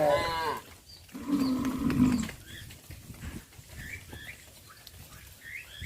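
Cattle mooing: a short call right at the start, then a longer, lower moo about a second in.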